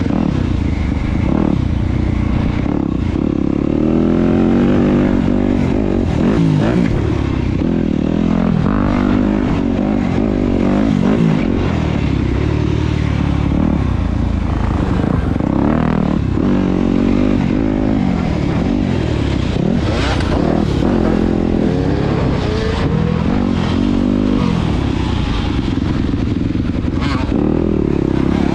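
Yamaha dirt bike engine heard from on board while riding, revving up and falling back again and again as the rider works the throttle and gears over the track.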